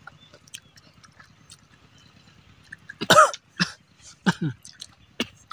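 A person coughing and clearing their throat in a few harsh bursts starting about three seconds in, the throat stung by the chili heat of spicy rujak. Before that only faint small clicks.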